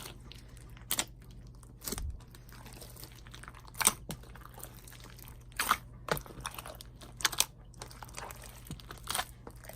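Hands folding and kneading a large batch of thick, textured slime mixed with foam beads and clay: sticky squelches with sharp pops and clicks at irregular intervals, over a faint steady low hum.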